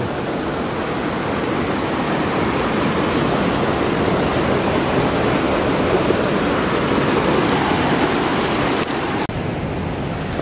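Steady rushing noise of wind buffeting the microphone, cut off sharply near the end and then resuming slightly quieter.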